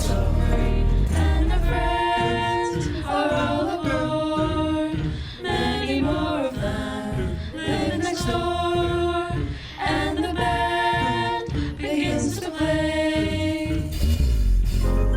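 Group of voices singing together, a cappella or nearly so, holding long notes that change pitch every second or so.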